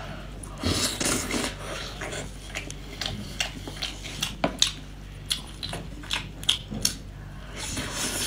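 Close-up eating sounds of a person eating sauce-covered bread crab (brown crab): wet chewing, lip smacks and sucking at the meat, broken by irregular sharp clicks and crackles as the shell and meat are bitten.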